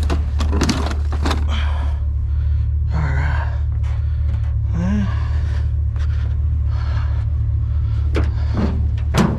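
Scattered clanks and knocks of scrap being handled and stepped around in a metal pickup truck bed, with a few sharp strikes near the start and two more near the end, over a steady low hum.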